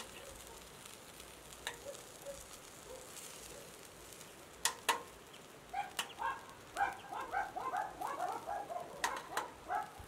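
Metal kebab skewers clinking sharply against a metal tray, a quick double click about halfway through and again near the end. Over the last four seconds a bird calls in a quick run of short repeated notes.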